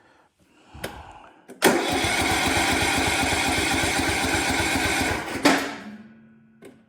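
A click, then the electric starter cranking a Craftsman LT 2000 riding mower's engine for about four seconds in an even rhythm without it catching, stopping abruptly. It does not fire because it has not been choked enough.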